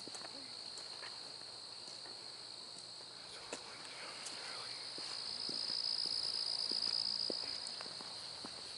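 Crickets and other night insects chirring in a steady high-pitched chorus that swells louder for a few seconds in the second half, over soft footsteps on a dirt trail.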